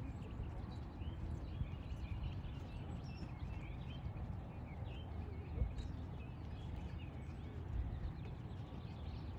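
Hoofbeats of a trotting dressage horse on soft sand arena footing, with birds chirping.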